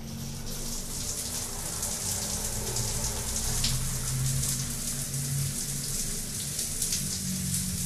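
Water falling in thin, weak streams from a square overhead rain shower head and spattering on the tiled floor, a steady splashing that grows a little louder over the first couple of seconds. The flow is weak from low water pressure, which the plumber blames on the air vent pipes (jarros de aire) having been removed from the plumbing.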